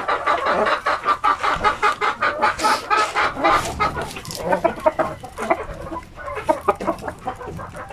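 Native chickens clucking: a busy, unbroken run of short clucks.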